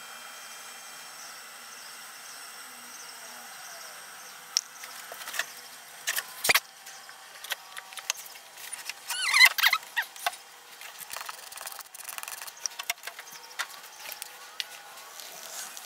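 Plastic mixing cups and a wooden stir stick being handled on a workbench: scattered small clicks and knocks, with a brief squeaky rub about nine seconds in.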